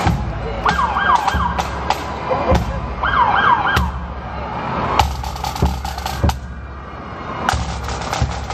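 Police siren giving short yelping whoops, two brief bursts of fast up-and-down sweeps in the first four seconds, over steady crowd noise with scattered sharp thumps.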